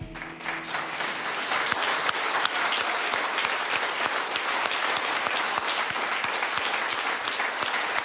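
Studio audience applauding: the clapping starts as the music ends, swells within the first second and stays steady.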